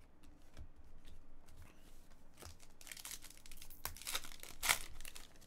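Foil wrapper of a trading-card pack crinkling and tearing as it is ripped open by hand: light scattered crinkles at first, then busier tearing and crackling from about halfway through.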